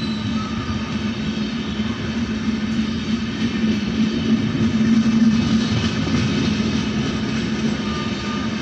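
Passenger coaches of the New Delhi–Lucknow Tejas Express rolling past: a steady rumble of wheels on the rails with a low hum under it, swelling slightly about five seconds in.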